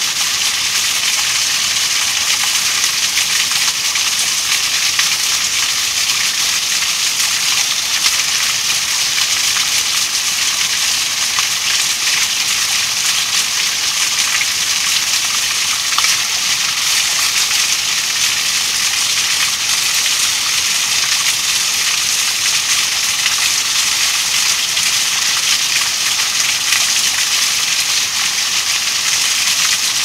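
A small waterfall splashing steadily onto rocks, an even rushing of water that does not change.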